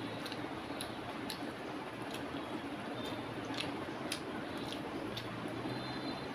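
Fingers squeezing and mixing rice with chicken curry on a metal plate: soft wet squishing with scattered light clicks.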